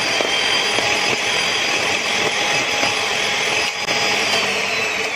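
Electric hand mixer running steadily, its twin wire beaters whisking a thick mulberry ice cream mix in a plastic bowl. Near the end it is switched off and its whine falls in pitch as the motor winds down.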